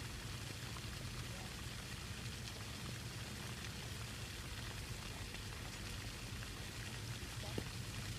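Steady hiss of water spray from a lawn sprinkler, over a low steady hum.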